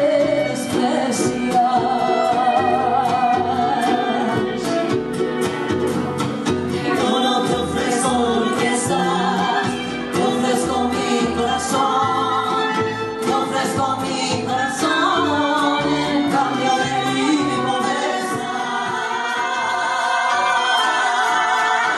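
Live mariachi band: women singing together over strummed guitars and a plucked double bass, with trumpet and violin in the line-up.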